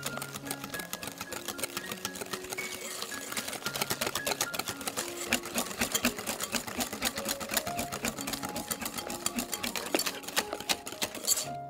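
Wire balloon whisk beating eggs into creamed butter and sugar in a glass bowl: a rapid, steady clicking of the wires against the glass, stopping just before the end. Soft background music runs underneath.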